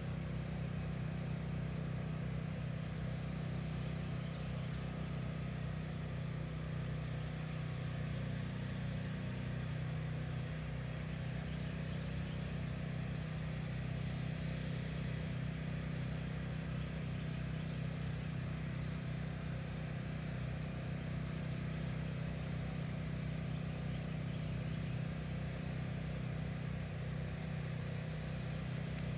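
A steady, low mechanical hum, like an engine or motor running at a constant speed.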